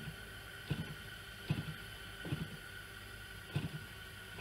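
Faint outdoor noise on a tablet's microphone: soft low thumps about every 0.8 seconds over a steady high hum.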